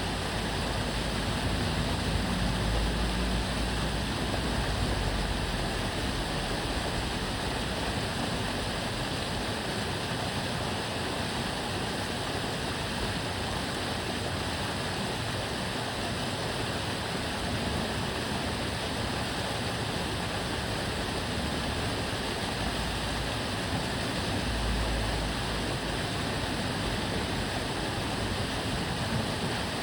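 Water flowing and murmuring in a stream channel, a steady rushing. Low traffic rumble swells under it briefly near the start and again near the end.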